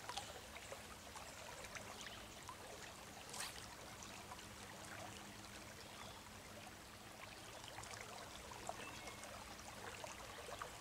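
Shallow trout-stream riffle flowing, a steady faint rush of water with small scattered splashes and one brief sharper splash about three and a half seconds in.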